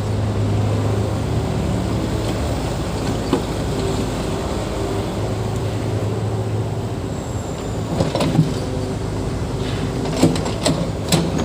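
Diesel engine of heavy earthmoving equipment running steadily, with a few sharp knocks about eight seconds in and several more near the end.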